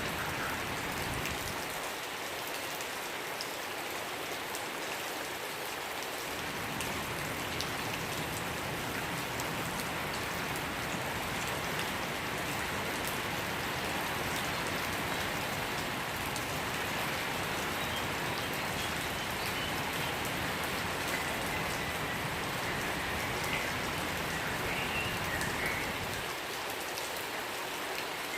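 Steady rain falling and pattering on surfaces, with a few faint, short bird chirps over it, mostly in the second half.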